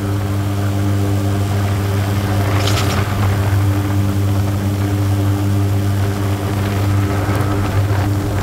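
An engine running steadily at constant speed, a loud even drone, with a short hissing burst about three seconds in.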